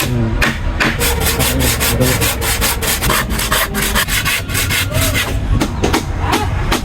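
Hand saw cutting through wood in quick, regular back-and-forth strokes.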